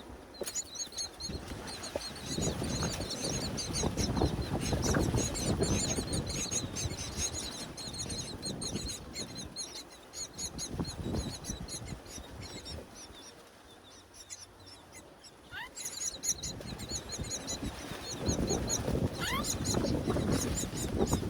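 Myna chicks' rapid, high-pitched begging chirps, repeated several times a second in two spells with a lull in the middle, with a few short rising whistles near the end over a low rumbling noise.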